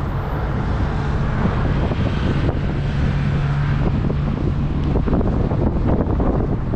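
Wind buffeting the microphone in uneven gusts, over a steady low rumble of city traffic.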